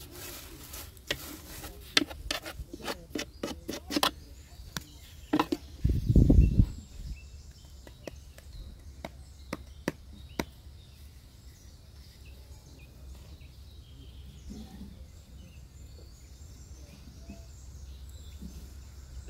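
Quick clicks and taps of a metal spoon against a steel tray, crowded at first and thinning out, with one loud dull bump about six seconds in. After that only faint outdoor background remains.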